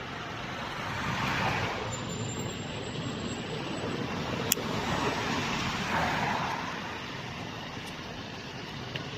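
Cars passing on a road with engine and tyre noise, swelling and fading as each goes by. The loudest passes come about a second and a half in and again around five to six seconds. A short sharp click comes about four and a half seconds in.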